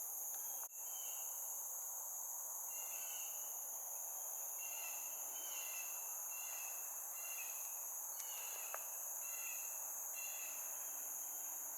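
Steady high-pitched chorus of late-summer insects such as crickets, with a run of short chirps repeated about every half second.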